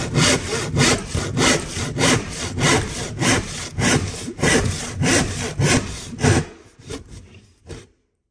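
Hand saw cutting through a plywood sheet in quick, even strokes, about three a second. The sawing stops about six and a half seconds in, leaving a few faint knocks.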